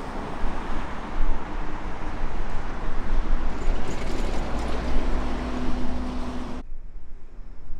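Jet airliner on its landing approach: a steady, loud roar with faint engine tones, mixed with wind on the microphone. The roar cuts off abruptly near the end, leaving only a low rumble.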